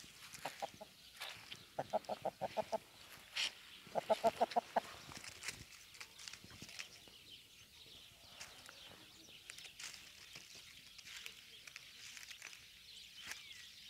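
Speckled tricolour hen clucking in quick runs of short notes, three runs in the first five seconds, followed by faint scattered rustles and clicks in dry leaves.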